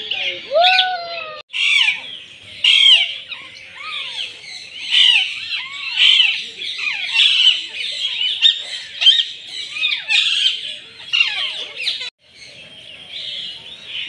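A chorus of many caged birds chirping, chattering and squawking over each other, with many short arching calls. The sound breaks off abruptly about a second and a half in and again near twelve seconds.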